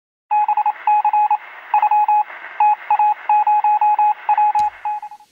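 A radio playing a single beeping tone that is keyed rapidly on and off in irregular short and longer groups over a steady hiss. A sharp click comes near the end.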